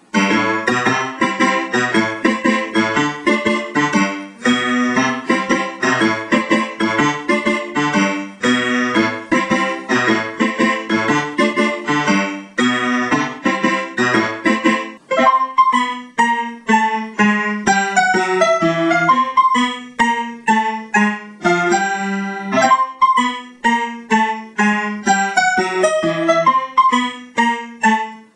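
Piano music accompanying a silent film, a lively tune of quick, bouncing notes that starts abruptly. About halfway through the low bass notes drop out and the melody runs on in the middle and upper register.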